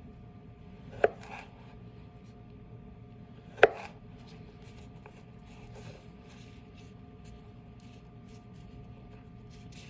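Chef's knife cutting carrot into batonnet sticks on a plastic cutting board. The blade knocks sharply onto the board twice, about a second in and again near four seconds in. Light taps and scrapes follow as the carrot sticks are moved about on the board.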